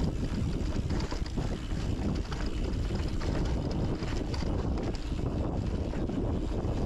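Mountain bike riding a dirt trail: wind buffeting the microphone over the rumble of the tyres, with frequent clicks and rattles from the bike.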